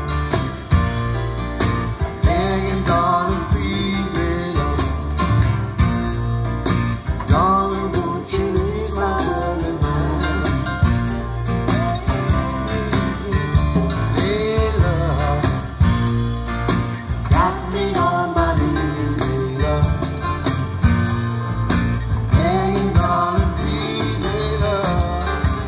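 A song with a singing voice, guitar and a steady beat, played loud through a pair of Seeburg DDS 1 'Discotheque' speaker cabinets with Altec 811 horns, powered by a tube amplifier. The bass is heavy.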